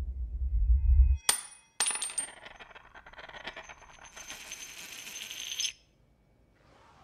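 Spent bullets dropping onto a tile floor: sharp metallic clinks and bounces with a high ring, after a low rumble that cuts off about a second in. A steady ringing rattle follows and stops suddenly near the end.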